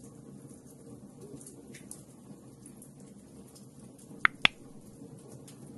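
Log fire crackling with faint scattered pops over a low hiss. About four seconds in, two sharp clicks a quarter second apart: a mouse-click sound effect on a subscribe button.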